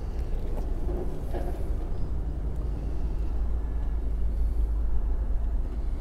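A steady low rumble with a light even hiss underneath.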